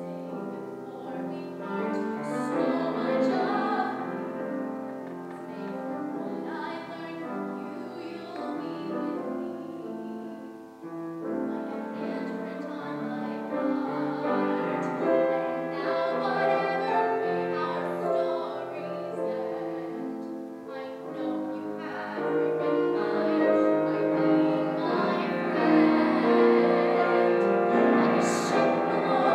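Female voice singing a musical-theatre ballad, accompanied by grand piano, growing louder in the second half.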